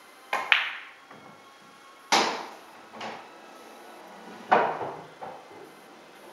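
Pool balls clacking: a sharp double click about half a second in as the cue tip strikes the cue ball and the cue ball hits an object ball. Then two louder knocks, about two and four and a half seconds in, each followed by a softer one, as balls strike the cushions and drop into the pockets.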